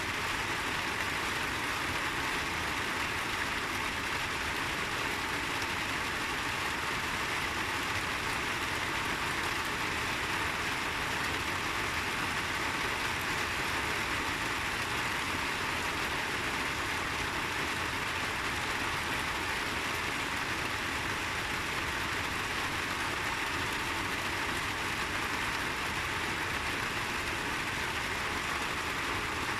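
Steady rain of a summer shower falling as an even hiss, with no single drops or gaps standing out.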